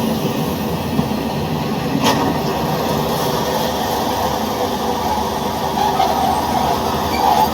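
Train running on the rails: a steady rumble with a sharp click about two seconds in.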